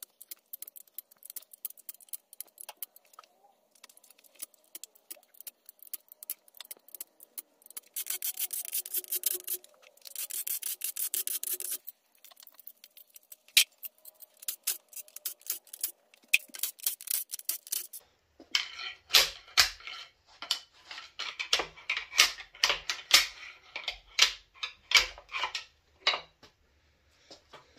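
Ratchet wrench clicking in quick runs as the main cap bolts of a 5.3 L LS V8 block are loosened and run out. About two-thirds of the way through, this gives way to louder, irregular metal clanks and knocks as the main caps and bolts are worked loose and handled.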